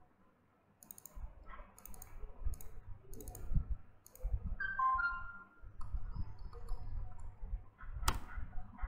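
Computer keyboard keys and mouse clicking at an uneven pace while code is edited, with a sharper click near the end.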